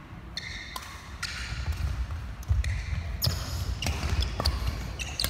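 Badminton doubles rally: sharp cracks of rackets striking the shuttlecock, court shoes squeaking on the wooden floor and footfalls thudding, echoing in a large sports hall.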